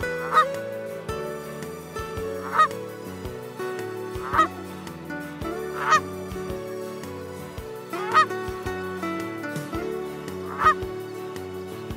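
A goose honking, one call about every two seconds, over background music with sustained notes.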